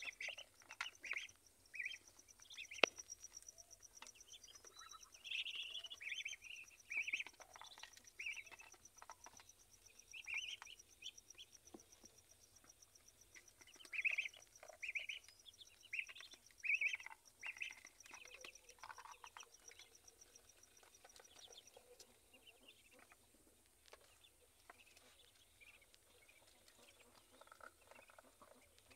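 Ducklings peeping: many short, high calls in quick succession, thinning out in the last third, with a single sharp click about three seconds in.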